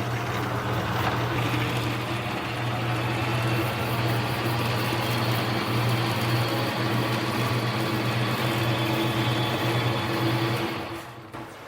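Hobby mini lathe's motor and spindle running at speed in high gear, a steady hum with a low drone and a few steady tones above it. It falls away about a second before the end.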